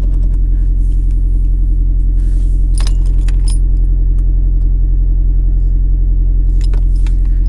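Honda Accord engine idling steadily, with a few light clicks about three seconds in and again near the end.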